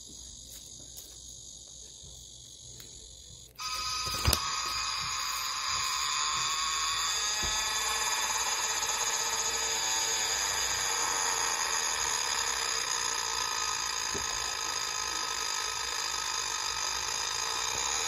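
Cicada song. For the first three and a half seconds a blackish cicada (Cryptotympana atrata) buzzes steadily and high-pitched. It then cuts abruptly, with a click just after, to a louder, fuller, steady ringing song of another cicada species.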